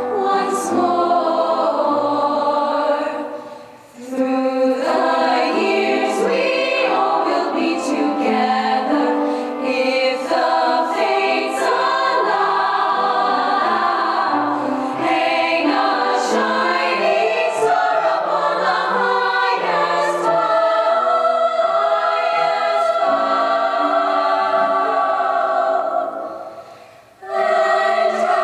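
Young women's choir singing in parts, in long held phrases; the sound drops away briefly about four seconds in and again near the end before the next phrase begins.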